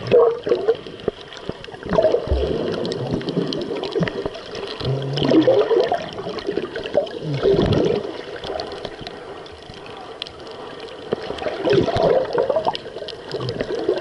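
Muffled underwater sloshing and gurgling of water around an action camera held just below the surface among finning swimmers, coming in irregular surges.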